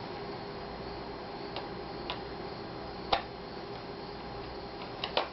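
Scattered small clicks and taps of a screwdriver and plastic laptop parts being handled while the screen bezel's cover screws are refitted, one sharper click about three seconds in and a quick double click near the end, over a steady low hum.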